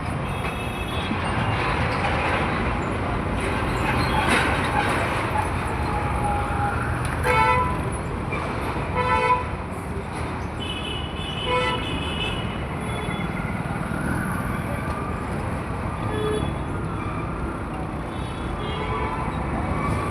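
Busy road traffic with a steady rumble of engines and tyres, and vehicle horns honking several times, loudest about 7 and 9 seconds in.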